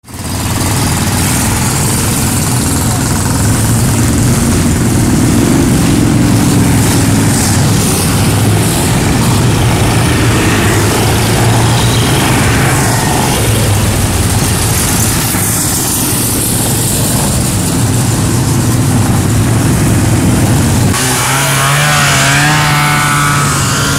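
Engines of several six-wheeled amphibious ATVs running and accelerating as the machines drive past on a dirt track. Near the end the engine sound changes to a note with a wavering pitch.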